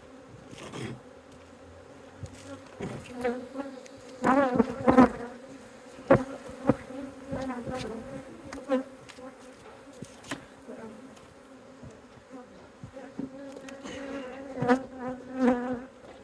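Honeybees buzzing around an open hive: a steady hum, swelling and bending in pitch as bees pass close by, loudest about four to five seconds in and again near the end. A few sharp knocks and clicks sound in the middle.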